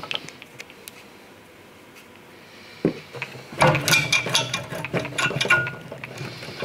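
Metal parts clinking and clattering on a wooden workbench as a Volvo 240 front brake caliper and its bolts are handled: one knock about three seconds in, then a quick run of metallic clicks and short rings.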